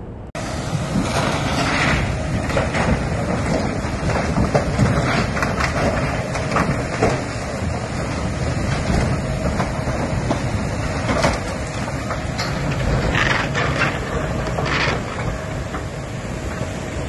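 Loud, steady rushing of storm wind and surging floodwater buffeting the microphone, with a few scattered knocks and crunches.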